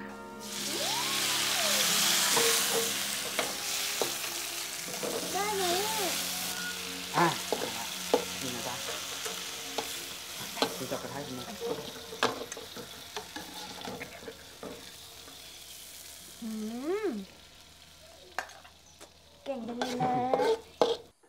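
Food tipped into a hot wok sizzles loudly, then is stir-fried with a metal spatula that clicks and scrapes against the wok while the sizzle slowly dies down. Brief laughter near the end.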